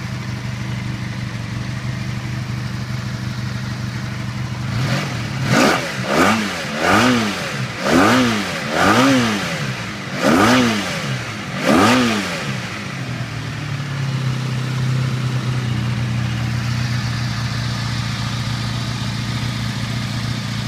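1985 Honda V65 Magna's 1100 cc V4 engine idling steadily, then revved in about seven quick throttle blips, each rising and falling in pitch, before settling back to idle.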